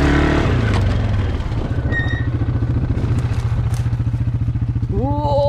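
Quad bike engine running at low revs, a steady rapid putter.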